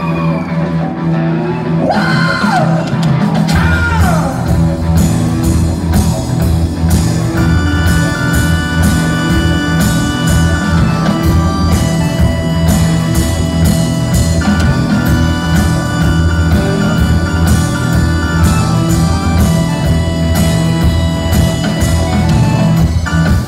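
Live rock band playing a blues-rock number. Electric guitar bends slide in pitch at first, then bass and drums come in about three and a half seconds in with a steady driving beat, and held chords sound over it.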